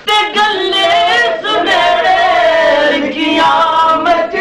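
A man singing a Punjabi Sufi devotional song (kalam) into a microphone, with no instruments showing. He holds one long, slowly falling note in the middle of the phrase.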